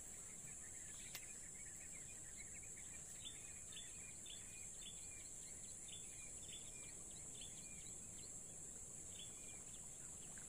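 A steady high-pitched insect drone, with short chirping calls repeating about twice a second from about three seconds in to near the end.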